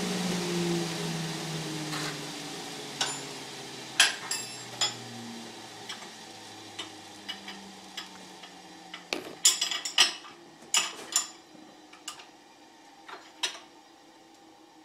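A motor on a lathe-mounted router copier spins down, its hum sinking in pitch and fading over the first few seconds. Sharp metal clinks and knocks of hand tools follow, bunched together about two-thirds of the way through.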